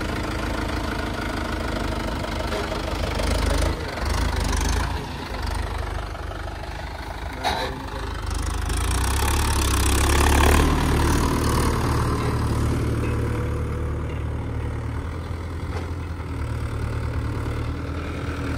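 Diesel tractor engine running steadily. It grows louder for a couple of seconds around the middle, then settles back. A short click comes about halfway through.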